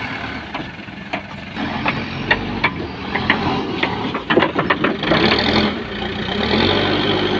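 Terex backhoe loader's diesel engine running while the backhoe works, with a string of sharp metallic clanks and knocks from the arm and bucket in the first half. About five seconds in, the engine grows louder as the hydraulics take the load.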